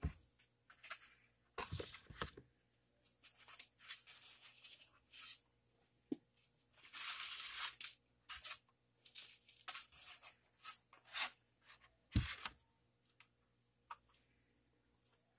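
Toy packaging being torn open and handled: irregular scratchy tearing and crinkling in short bursts, one longer rip about seven seconds in, and a few low thumps, twice near the start and once near the end.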